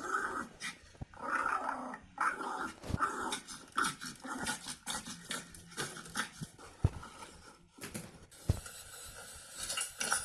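A dog making repeated short vocal sounds through the first few seconds, with a few sharp knocks.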